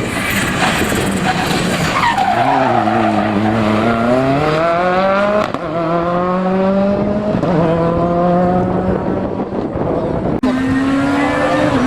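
Rally car engine coming off the throttle and dropping in pitch as it brakes into a corner, then revving up and accelerating away, pitch climbing through two gear changes. An abrupt change in the engine note near the end.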